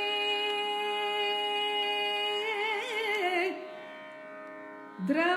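Female Carnatic vocalist singing a sloka: one long held note, ornamented with a pitch shake about three seconds in, then trailing off over a steady drone. She comes back in with an upward glide near the end.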